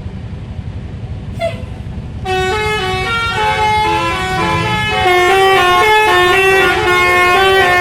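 Bus telolet horn playing a rapid melody of changing notes, starting about two seconds in and getting louder, over the low rumble of the bus's engine.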